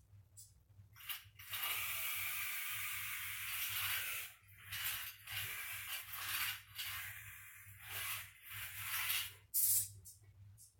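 Small robot car's electric gear motors driving in spurts: a long run about two seconds in, then a series of short starts and stops as it turns and heads for the light.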